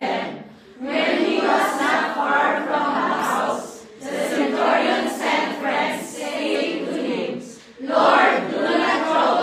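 A group of voices reading a Bible passage aloud together in unison, in phrases broken by short pauses.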